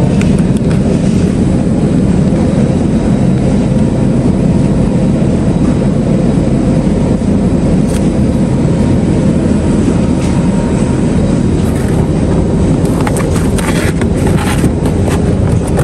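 Steady, loud low rumbling noise with no clear pitch, with a few light clicks and rattles near the end.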